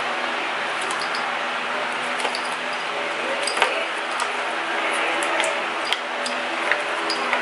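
Small scattered clicks and rattles of plastic wiring connectors and bulb sockets being handled inside a scooter's plastic tail cowl, over a steady background hum.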